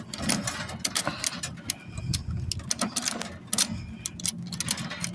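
Coin-operated gumball vending machine's crank mechanism being worked, giving a rapid, irregular run of metal clicks and ratcheting; the machine is not dispensing.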